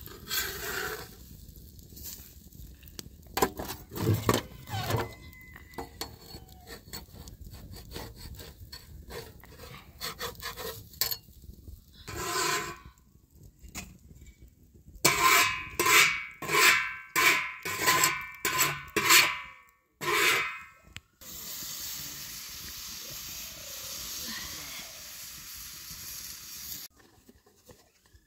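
Crackling ticks from a wood fire under an iron griddle, then a run of rhythmic scraping strokes, about two a second, and after them a steady hiss lasting several seconds.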